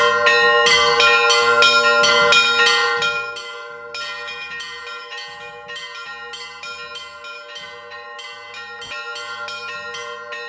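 Church bells ringing: several bells struck in quick succession over a steady lingering hum of larger bells. Loud for about the first three seconds, then quieter while the ringing goes on.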